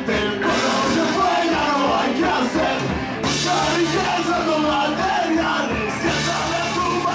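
Live ska-punk band playing loudly, a full band with horn section, with a shouted vocal over it; the cymbals grow brighter about three seconds in.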